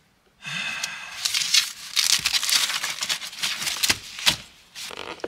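A stack of paper documents rustling and crinkling as gloved hands leaf through it, starting about half a second in, with a few sharper flaps of paper near the end.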